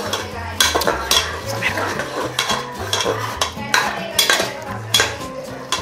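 A metal spoon stirring food in a metal cooking pot, clanking sharply against the pot every second or so.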